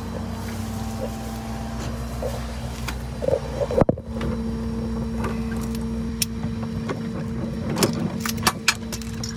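A vehicle engine idling steadily, a low even hum with a second higher tone. Knocks and rubbing from the phone being handled come about three to four seconds in, then a few sharp clicks near the end.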